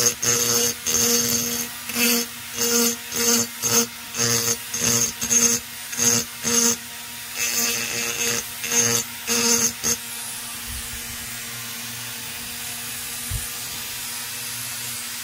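Flex-shaft rotary tool running with a steady hum while its small bit grinds the edge of a chainsaw cylinder's intake port in repeated short strokes, a little under two a second, chamfering off the sharp edge. About ten seconds in the strokes stop and the tool runs on steadily.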